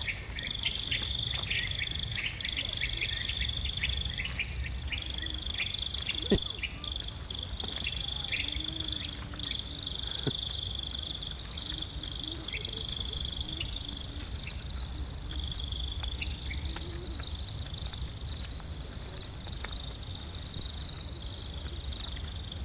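Insects chirring in a steady high-pitched trill broken by short gaps, with quick high chirps crowding the first few seconds. A low steady rumble runs underneath, and one sharp click sounds about six seconds in.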